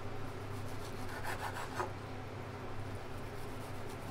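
Knife cutting fried bacon into small pieces on a cutting board: a few short scraping strokes about a second and a half in.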